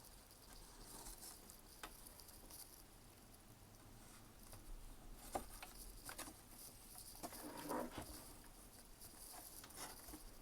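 Faint handling sounds as cord is pulled through the holes of a wooden lantern and crossed over: soft rustling with a few scattered light clicks and knocks.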